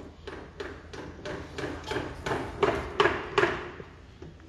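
Hammer blows knocking the lower end of a coilover shock absorber into its mount: about ten sharp strikes, roughly three a second, growing louder and then stopping about three and a half seconds in.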